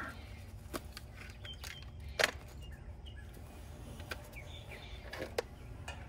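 Outdoor ambience of faint bird chirps over a low steady rumble, with a few sharp clicks from a multimeter and its test leads being handled. The loudest click comes about two seconds in.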